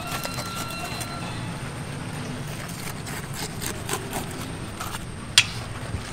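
A knife cutting through the flesh of a large ocean sunfish, with scattered light clicks and one sharp knock about five seconds in, over a steady low hum.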